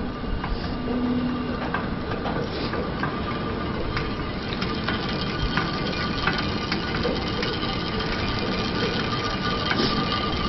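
Greased steel haul cables and running gear of a transporter bridge in motion as the gondola crosses, a steady rattling rumble with many small clicks and crackles, which sounds like grease splatting off the cables.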